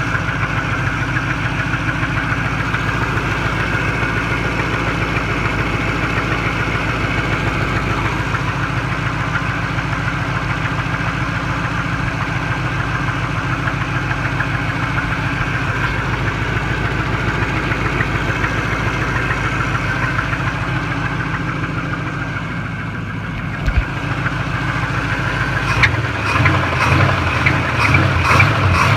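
Chevy 305 small-block V8 running at idle with a repetitive knock, which the owner suspects comes from the flywheel or transmission behind the engine block. Near the end the sound becomes louder and rougher, with sharper uneven knocks.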